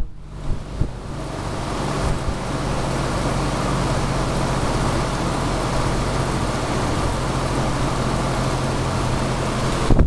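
Vintage ILG box fan running, a steady rush of air over a low motor hum, growing louder over the first few seconds as the blade comes up to speed, then holding steady.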